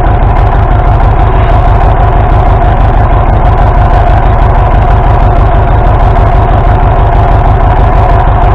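An International tractor's gas-start diesel engine running steadily on its gasoline starting system. It is misfiring, which the owner puts down to a bad spark plug.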